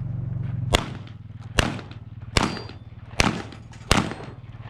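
Shotgun fired five times in quick succession, roughly one shot every 0.8 seconds, each blast followed by a short echoing tail.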